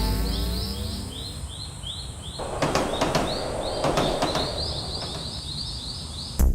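Rapid repeated short, high rising chirps, about three or four a second, with a rushing noise for a second or two in the middle.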